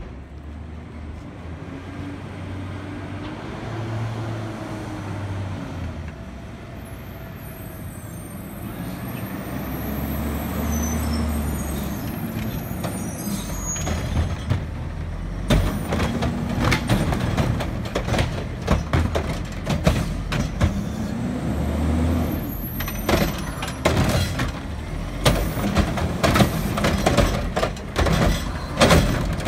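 Front-loading garbage truck with a Curotto-Can cart arm pulling up: the engine running and changing pitch as it comes closer, with air-brake hissing. From about halfway through, repeated clanks and rattles of the forks and cart arm as it moves in on the cart.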